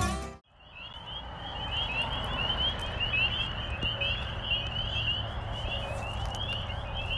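Guitar and banjo music stops about half a second in. It gives way to a steady chorus of rapid, high chirping calls over a low rumble.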